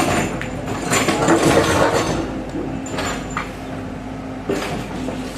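Diesel engine of an earthmoving machine (excavator or bulldozer) running steadily, with several surges of scraping and clanking from the machine working the soil.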